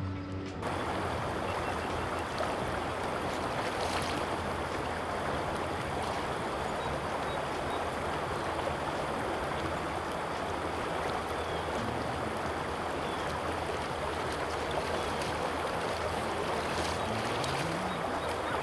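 Steady rushing of a shallow river flowing over a gravel riffle.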